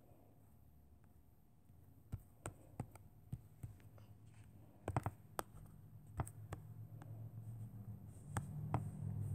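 Light, irregular taps on a tablet touchscreen, about a dozen, with a quick cluster about five seconds in. A faint low hum builds toward the end.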